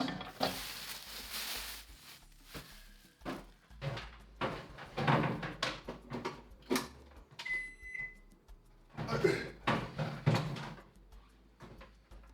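Small microwave oven being handled: knocks and clicks of its door opening and shutting, and one electronic beep from its control panel about two-thirds of the way through.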